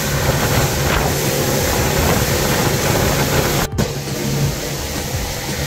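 Outboard motor of a fishing boat running at speed, a steady hum under a rush of wind and water. It breaks off sharply for an instant about three and a half seconds in, then carries on a little quieter.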